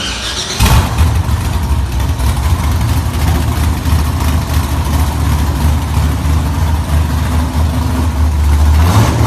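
Starter cranking the engine of an OBS Chevrolet Silverado 2500 pickup steadily for about eight seconds without it firing. This is a crank-no-start that the owner traced to the truck's anti-theft security system.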